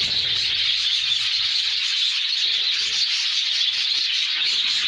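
Many small birds chattering and twittering at once, merging into a dense, continuous high-pitched chorus.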